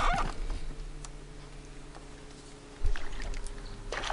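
A steady low hum over quiet water, a sharp knock about three seconds in, and a small splash on the water near the end.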